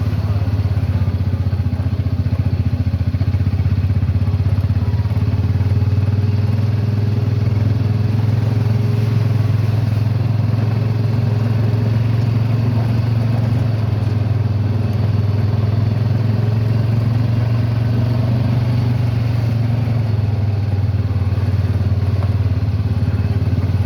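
Honda Pioneer UTV engine running at a steady low speed, a continuous low drone heard from on board as the buggy creeps along a muddy trail.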